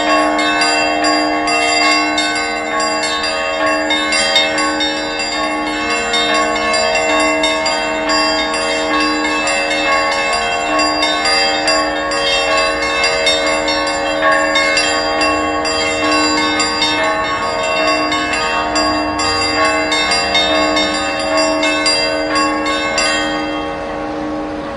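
Church bells ringing, several bells struck in quick succession, several strikes a second over their lingering ring. The striking stops about 23 seconds in, leaving the bells' ring to die away.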